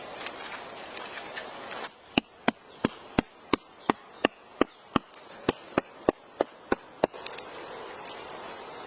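A quick, even series of sharp knocks, about three a second, going on for about five seconds and then stopping, like something being struck repeatedly.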